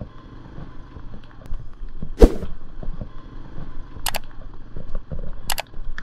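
Onboard sound of a Yamaha Serow 225's air-cooled single-cylinder four-stroke engine running at low road speed, with irregular knocks and rattles over a rough wet road. One sharp, loud knock comes about two seconds in, and two short clicks come later.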